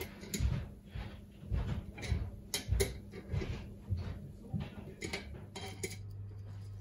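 Metal capacitor fins and spacers clicking and clinking as they are stacked by hand onto a threaded rod, irregular knocks a few times a second. They stop about five and a half seconds in, leaving a steady low hum.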